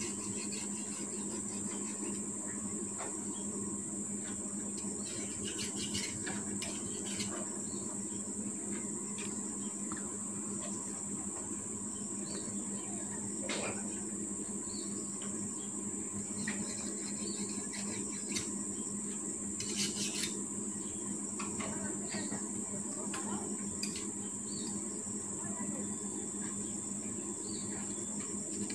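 Steady high-pitched chorus of insects, with a low steady hum underneath and a few faint scattered clicks.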